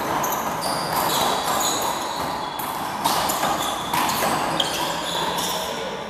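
Sneakers squeaking on an indoor court floor as one-wall handball players cut and shuffle, with two sharp smacks of the rubber handball about a second apart midway.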